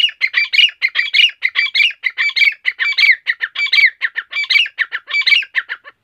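Grey francolin calling: a loud, shrill, rapid series of repeated multi-note phrases, about one phrase every two-thirds of a second, breaking off abruptly near the end.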